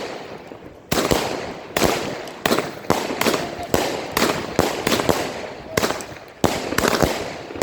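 A Katan 'Tornado' 144-shot 25 mm firework cake firing in rapid succession: sharp bangs come roughly two a second, each one trailing off into a fading crackle before the next.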